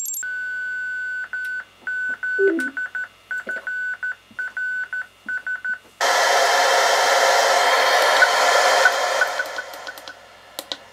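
SSTV signal heard over the Guohetec Q900's receive audio: a single steady whistle tone switched on and off in short and long pips, like Morse code, at the tail of the SSTV transmission. About six seconds in it gives way to FM receiver hiss, which fades near the end, with a few clicks of a front-panel button.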